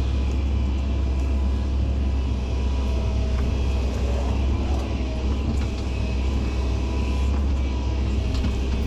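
Heavy diesel earthmoving machinery running steadily, a deep continuous rumble with a few faint ticks and clanks over it.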